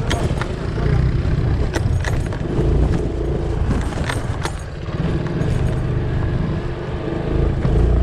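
Motor vehicle running: a steady low rumble with scattered sharp knocks and rattles.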